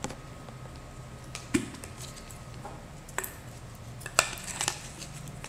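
Metal measuring spoons and a plastic tub of potassium powder being handled: a few scattered clicks, knocks and clinks as the spoon is readied to scoop the powder.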